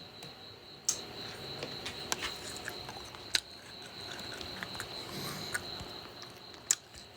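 Pig feeding: scattered short clicks and crunches of chewing and moving about, over a steady high-pitched whine.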